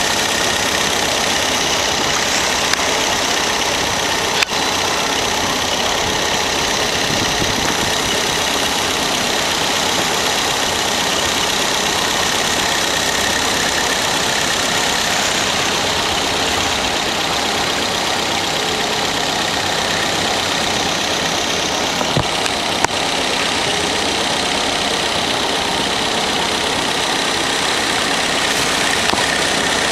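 Boat engine idling steadily, with a brief knock a few seconds in and another about two-thirds of the way through.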